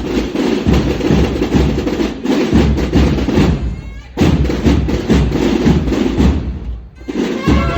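Drums of a Holy Week bugle-and-drum band playing a dense, driving beat, dropping away briefly twice; near the end the bugles come in on held notes.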